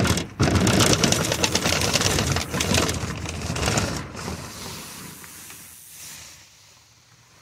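PEX tubing dragged into ribbed black corrugated conduit, a loud rapid rattling scrape with a vehicle engine behind it. It starts just after a knock, stays loud for about four seconds, then fades away.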